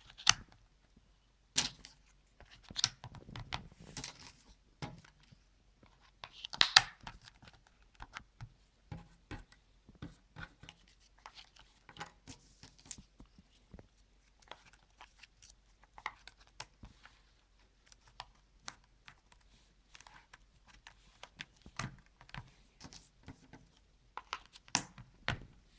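Cardboard jigsaw puzzle pieces being handled and pressed into place: scattered light clicks and taps, with a louder scraping rustle about seven seconds in.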